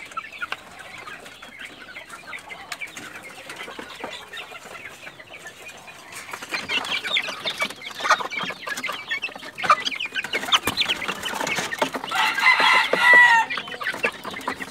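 Young gamefowl chickens clucking and chirping, with many short scratching clicks that get busier about halfway through. Near the end one bird gives a single crow about a second long, the loudest sound here.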